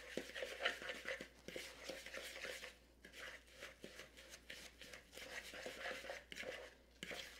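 Buttered graham cracker crumbs being stirred in a plastic mixing bowl: faint, irregular scraping and rustling.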